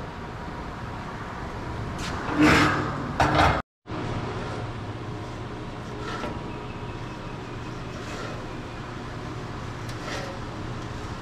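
Steel parts being handled on a steel workbench: a loud clatter and scrape of metal about two and a half seconds in. Light taps of metal on metal follow as a round steel plate is fitted against the end of a stainless steel drum, over a steady mechanical hum.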